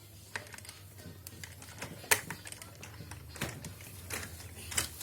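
Irregular light clicks and taps of hard objects, a few spread across a few seconds, with the sharpest about two seconds in.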